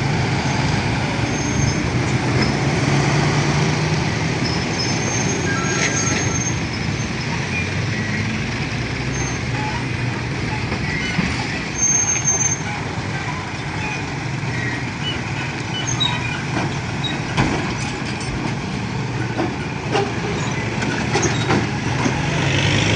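Heavy road vehicles running: a steady low engine rumble with traffic noise, and a few brief high squeaks and clicks.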